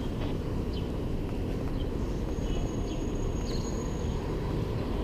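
Steady low rumble of city street ambience, with a faint thin high whine for about a second and a half midway.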